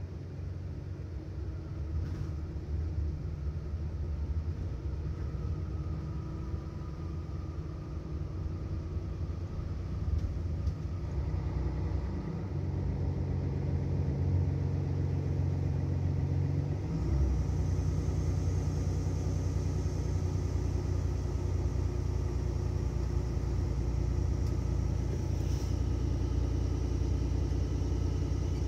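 Mercedes-Benz Citaro city bus engine running under way, a steady low hum. Its note changes about twelve seconds in, and again about seventeen seconds in, where it gets louder.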